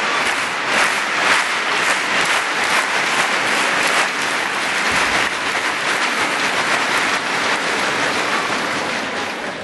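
Arena crowd applauding, a dense steady clatter of many hands clapping that eases off near the end.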